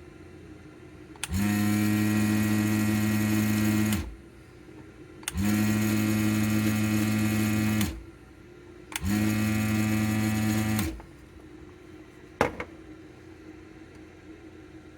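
Electric vacuum pump of a desoldering tool buzzing in three bursts of about two to two and a half seconds each as the trigger is pulled to suck solder off capacitor leads, then a single sharp click near the end.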